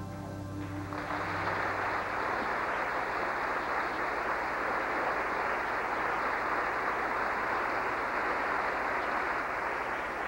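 An orchestra's final held chord dies away in the first second, then an audience breaks into steady applause.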